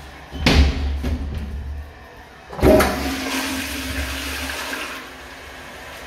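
A knock about half a second in, then a toilet flushing: a sudden loud rush of water about two and a half seconds in that holds for a couple of seconds and then eases to a quieter steady flow.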